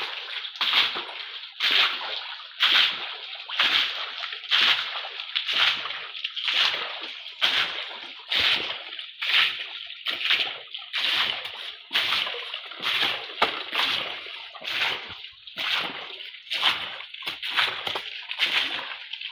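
Muddy water being scooped and splashed by hand in a concrete tank, in a steady rhythm of about one splash a second.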